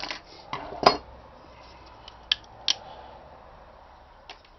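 Pliers and small power-supply parts clicking and knocking on a workbench: a handful of sharp clicks, the loudest just under a second in, with quieter ones a little after two seconds and just before the end.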